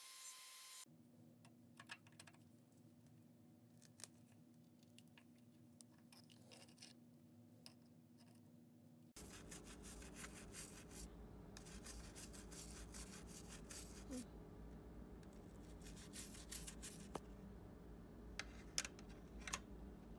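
A rotary tool's whine cuts off under a second in. Later comes faint scratching and scrubbing of a toothbrush on old metal machine nameplates in an aluminium tray, with scattered sharp ticks.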